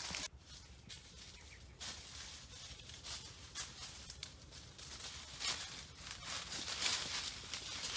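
Dry leaf litter and twigs rustling and crunching under a person's hands and feet as they crawl through undergrowth, in irregular crackles that are sparse at first and grow busier toward the end.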